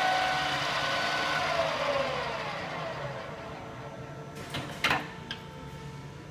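Ibarmia 1B-35-G geared-head drill press running with a steady gear whine that slides down in pitch and fades as the spindle winds down. Several sharp clicks follow about four to five seconds in.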